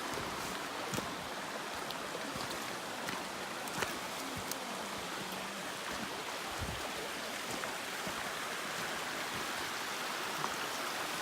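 A mountain creek running over rocks at a trail crossing, a steady rushing and burbling, with a few faint clicks.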